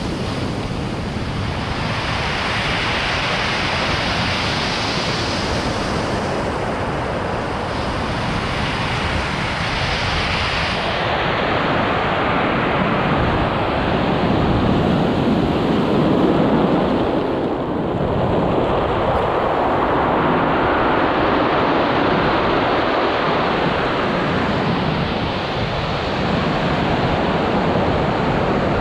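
Rough ocean surf breaking and washing up a pebble beach, a continuous rushing that swells and eases as the waves come in.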